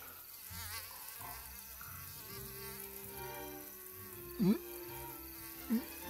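A buzzing insect like a fly or mosquito flying around, its buzz wavering in pitch, with two louder swooping buzzes about four and a half seconds in and near the end as it passes close.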